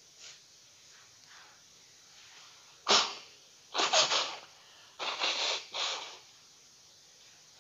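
A man sneezes once, loudly and suddenly, about three seconds in. He then blows his nose hard into a tissue in a few noisy bursts.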